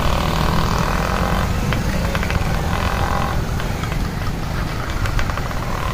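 Busy street traffic noise: a steady low rumble, with a higher engine drone swelling up about three times as vehicles pass.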